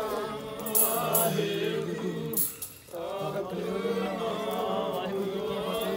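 Sikh devotional singing: voices chanting a religious song in long held, wavering notes, breaking briefly about two and a half seconds in, with a few sharp bright strokes over the top.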